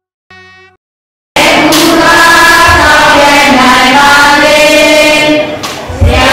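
A group of voices chanting together, loud and dense, starting suddenly about a second in after a short held tone. It dips briefly near the end.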